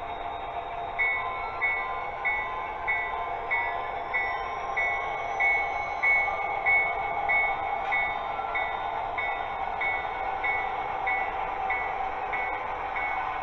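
Sound decoder of an HO scale Erie Lackawanna SDP45 diesel locomotive, its bell ringing steadily at about one and a half strikes a second, starting about a second in, over a steady engine hum.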